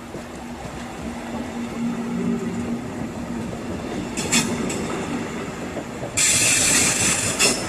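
Double-deck regional train rolling slowly into a platform and braking, its rumble growing louder. A few sharp clicks come about four seconds in, and a loud high hiss-like screech lasts about a second near the end.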